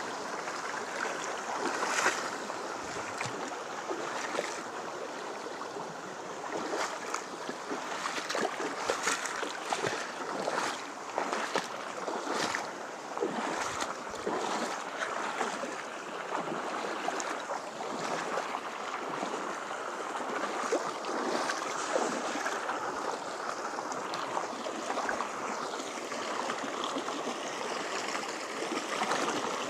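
River water flowing and splashing over rocks: a steady rushing with frequent small splashes and gurgles.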